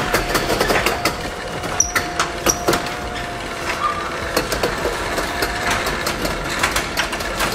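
Chamberlain RJO20 jackshaft garage door opener running a sectional garage door along its steel tracks: a faint steady motor whine under irregular clicking and clattering from the door rollers and panels.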